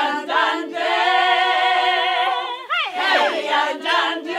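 Voices singing unaccompanied in long held notes with vibrato, breaking off briefly about two and a half seconds in and then coming back in.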